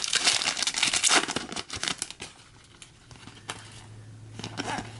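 Trading card pack wrapper being torn open and crinkled in the hands: dense crackling for about two seconds, then a few softer rustles and clicks.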